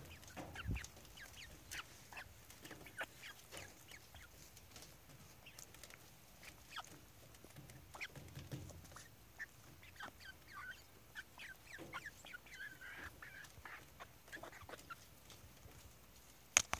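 Hens pecking at a bowl of cottage cheese: many quick, light beak taps, with soft short hen calls in among them. One sharper knock near the end is the loudest sound.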